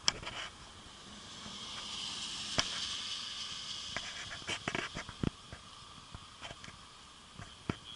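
A slow-moving vehicle's noise swells and fades over a few seconds, loudest about three seconds in. Scattered sharp clicks and ticks are heard throughout.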